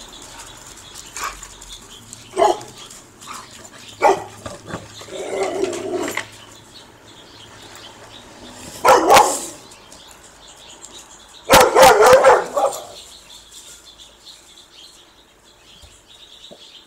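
Dog barking in short bursts, a few single barks and then two louder runs of barks about nine and twelve seconds in, while chasing a squirrel along a fence.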